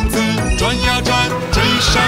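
Upbeat children's cartoon music with a steady beat.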